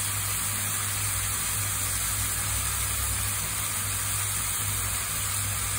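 Chopped mushrooms and grated tomato sizzling steadily in a frying pan, over a steady low hum.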